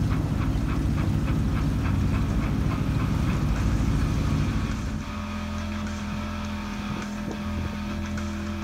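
Outboard motor running as a small boat travels at speed. About five seconds in, the sound changes abruptly to a quieter, steadier engine note.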